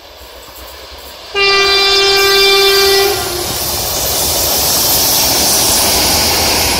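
A freight locomotive sounds one steady horn blast of under two seconds, starting about a second and a half in and dipping slightly lower just as it ends. The locomotive and its freight wagons then pass close by with loud running and wheel noise.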